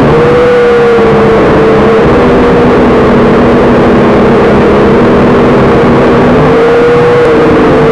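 Ares Ethos QX130 quadcopter's motors and propellers whining over a loud rushing noise. The pitch shifts with throttle, rising just after the start, settling lower, then rising and falling again near the end.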